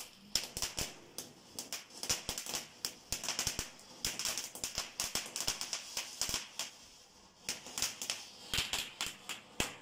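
Ground fountain firework crackling as it sprays sparks: a rapid, irregular run of small sharp pops, easing briefly about seven seconds in before picking up again.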